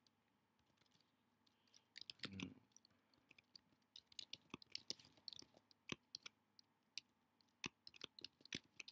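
Faint computer keyboard typing: quick, irregular keystroke clicks with short pauses, sparse at first and denser from about two seconds in.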